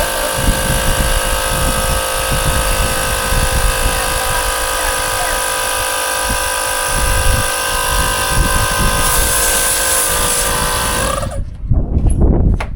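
Electric air pump running steadily, with a whine made of many even tones, while it inflates a bicycle tyre; it cuts off suddenly about eleven seconds in. Wind rumbles on the microphone throughout.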